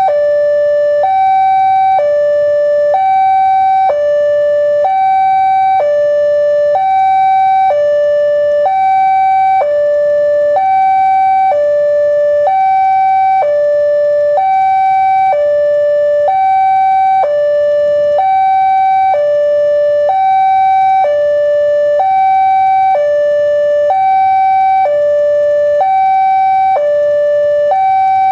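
Electronic railway level-crossing alarm sounding a steady two-tone warning, a higher and a lower tone alternating evenly at about one high–low pair a second: the signal that a train is approaching and the crossing is closed.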